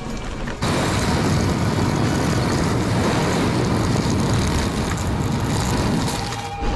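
Wind rushing over the microphone and tyres rolling on a dirt road as a mountain bike descends at speed. It starts abruptly about half a second in and cuts off just before the end.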